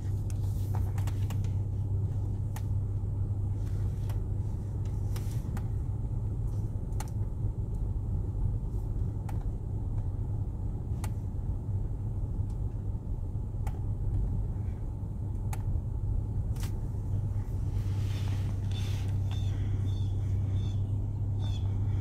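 Steady low hum of a Chrysler sedan's engine and tyres heard from inside the cabin as the car creeps forward and slows, with a few faint scattered clicks.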